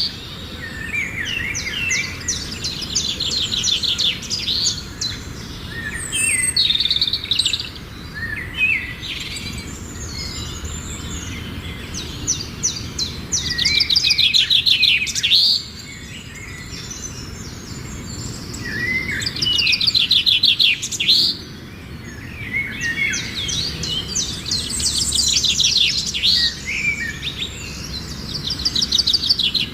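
Songbirds singing, with bursts of rapid trilled notes repeated every few seconds among other chirps, over a steady low background rumble.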